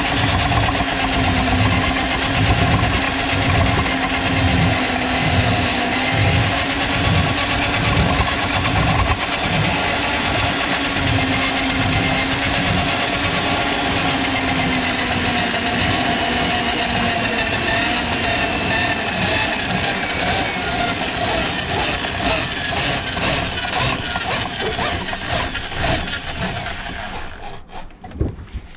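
Drill-driven drum drain auger running steadily, its cable turning in a kitchen sink drain line to clear a grease clog, with a low throb a couple of times a second. A rapid clicking rattle builds up in the second half, and the motor stops shortly before the end.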